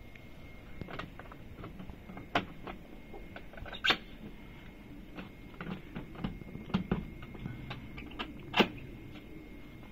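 Scattered light knocks and clicks from handling the metal hatch lid of a generator housing, with sharper knocks a little over two seconds in, about four seconds in and near the end.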